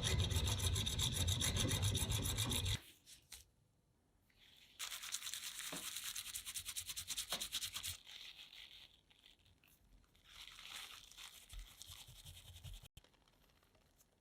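Fast abrasive scraping in three spells of a few seconds each, the first loudest and the last faintest, typical of hand-rubbing or sanding a part during restoration.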